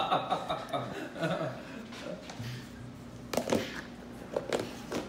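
Faint voices trailing off, then a few light knocks or taps in two close pairs about a second apart.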